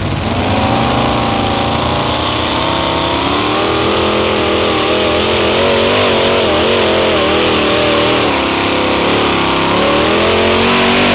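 Mini modified pulling tractor's engine running at full throttle while dragging the weight-transfer sled down the track. The pitch climbs in the first second, then holds high with a constant wavering as the load changes.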